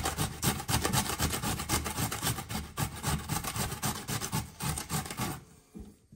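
A peeled raw potato rubbed quickly up and down a metal box grater, a fast, even run of rasping strokes that stops about five seconds in.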